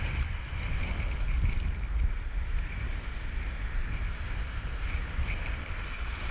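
Steady low rumble of wind buffeting the microphone, mixed with open-water noise, with no distinct events.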